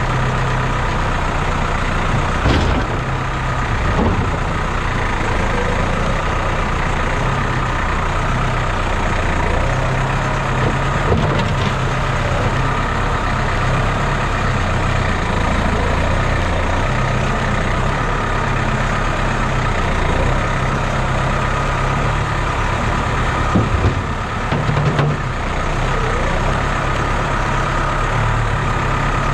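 Farm tractor's diesel engine running steadily, its low note swelling and easing as a Trima front loader digs into a manure pile and lifts the bucket. A few short knocks come from the loader, one near the start and a couple about three quarters of the way through.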